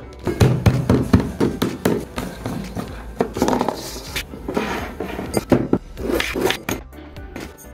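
Kitchen handling clatter: a run of irregular knocks, taps and scrapes as a plastic mixer-grinder jar is handled, a glass is set down on a hard counter and a lime is cut with a knife.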